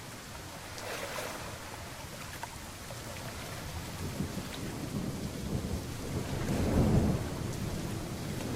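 Steady rain with a low rumble of thunder that builds through the middle and peaks loudest near the end before easing off.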